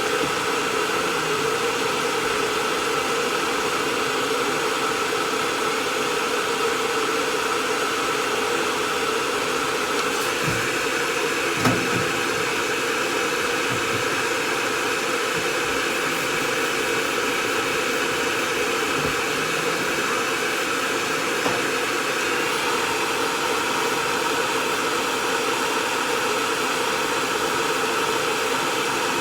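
Hair dryer running steadily, with a few soft knocks partway through.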